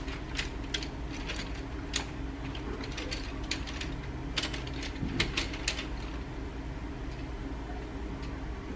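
Irregular light clicks and taps of someone rummaging for a pencil among small objects, over a steady low hum; the clicks die away about six seconds in.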